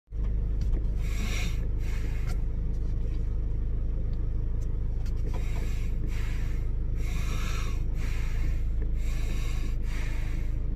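Steady low rumble of a car's cabin with the engine running. Soft breaths hiss through a face mask every second or so.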